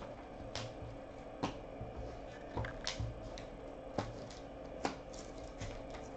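Trading cards in plastic sleeves and rigid holders being gathered and handled on a tabletop: faint scattered clicks and taps, about one a second.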